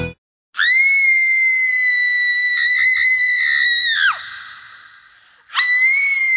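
A shrill, high-pitched scream held at a steady pitch for about three and a half seconds, ending in a sharp downward slide and a fading echo; a second scream starts near the end.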